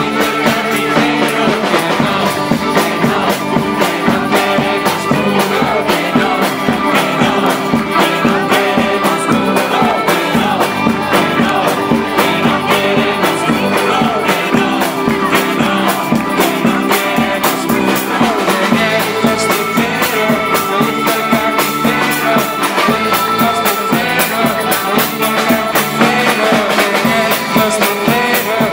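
Rock music with guitar and a steady drum beat.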